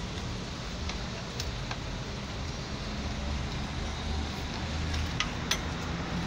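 A steady low rumble, like machinery or an engine running, with a few light metallic clicks about a second in and again near five seconds as a steel rod is worked through the tubes of a heavy-equipment radiator core.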